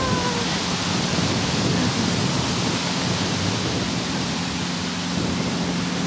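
Steady, loud rushing noise, with no rise or fall. A faint low hum joins about four and a half seconds in.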